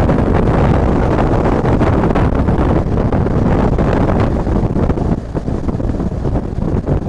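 Steady wind buffeting on the microphone of a camera riding on a BMW R 1250 GS Adventure cruising at speed, with the motorcycle's boxer-twin engine and tyres running underneath.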